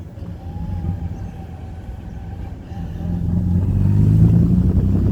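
Car engine and road noise heard from inside a moving car, a steady low hum that grows louder from about three seconds in as the car speeds up.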